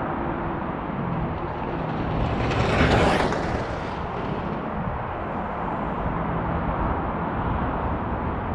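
An Extreme Bull K4/K5 electric ride passing close by at speed about three seconds in: a brief whoosh that rises and then falls away. Steady background noise continues underneath.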